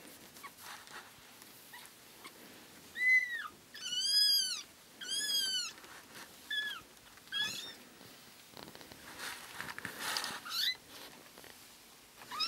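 Two-and-a-half-week-old kittens mewing: about six high, thin mews, each rising then falling in pitch, the loudest a little after four seconds in. Soft rustling between the mews near the end.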